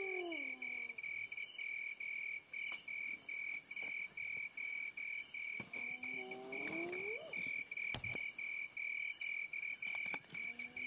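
A cricket chirping in a steady pulsing rhythm, about three chirps a second. Under it an animal gives a low call that rises and then falls in pitch, once in the middle and again starting at the end. A single sharp click comes about eight seconds in.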